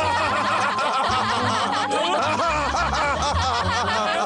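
Several cartoon character voices laughing together at once, over background music.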